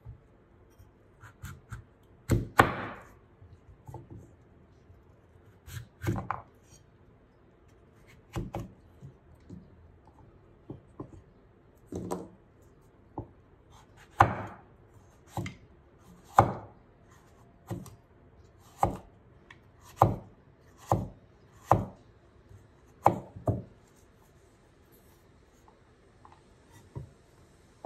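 A large knife cutting slices of raw pumpkin, each stroke ending in a sharp knock on a wooden cutting board. The cuts come irregularly at first, then about one a second, and stop a few seconds before the end.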